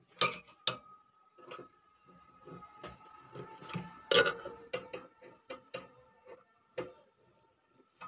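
Screwdriver working the mounting screws of a replacement microwave-oven magnetron into the sheet-metal chassis: a string of irregular metallic clicks and ticks, some leaving a faint metallic ring.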